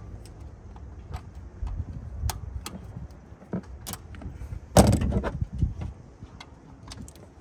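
Hand tools and metal parts clinking and knocking during work in a truck's engine bay: scattered light clicks, with a louder clatter of knocks about five seconds in.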